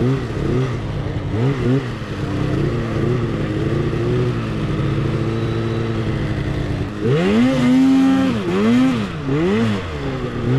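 Two-stroke mountain snowmobile engine revving through deep powder, its pitch rising and falling with the throttle. About seven seconds in it gets louder, with several quick rev surges in a row.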